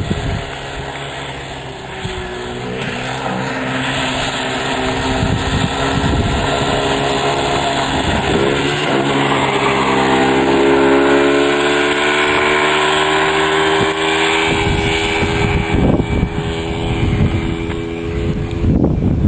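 Small 90cc quad ATV engine running, its pitch rising and falling with the throttle, with wind rumbling on the microphone near the end.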